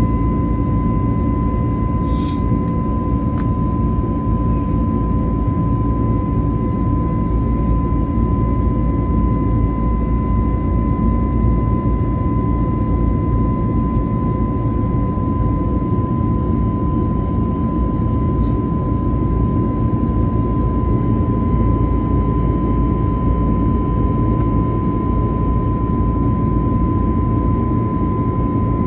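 Airbus A321neo cabin noise during the climb, heard beside the engine: the CFM LEAP-1A turbofan's steady rumble and rush at climb power, with a clear, steady high whine on top.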